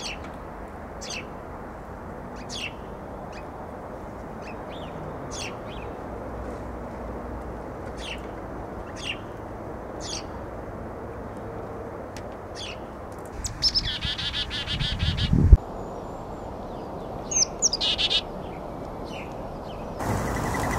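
House sparrows chirping, single short cheeps about one every second or so. About two-thirds of the way through comes a couple of seconds of rapid, buzzy bird calling over a low rumble that ends in a sharp thump, then a few more chirps.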